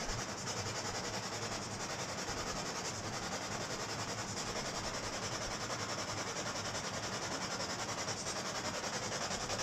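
Ghost-hunting spirit box sweeping through radio stations: a steady hiss of static with a fast, even pulsing.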